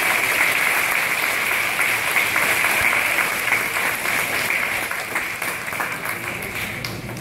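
Audience applauding, the clapping gradually dying down over the last couple of seconds.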